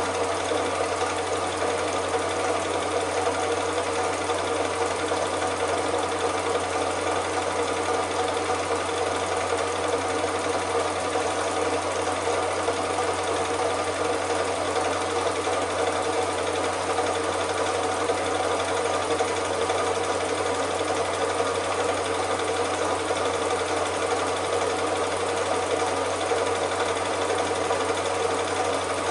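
Cine film projector running with a steady mechanical whirr that does not change, the sound of the projector captured when the silent home movie was transferred.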